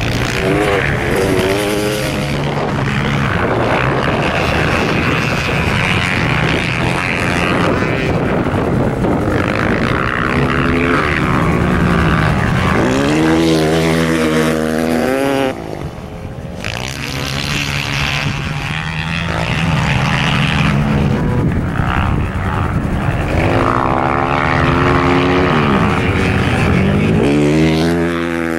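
Ice-racing motorcycle engines revving hard, climbing and falling in pitch over and over as bikes accelerate, shift and ease off. The sound drops suddenly about halfway through, then builds again.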